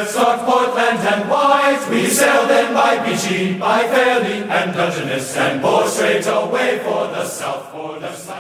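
Choral chant: several voices singing slow, held notes, fading out near the end.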